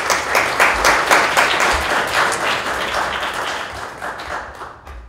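Audience applauding, a dense run of many hands clapping that thins and dies away near the end.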